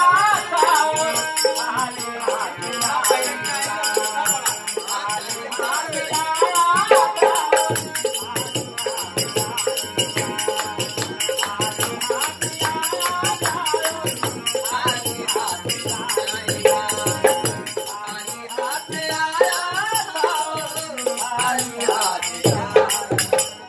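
A nirgun devotional folk song: a man singing over a harmonium, with dholak drum strokes and small hand cymbals (manjira) keeping a steady beat.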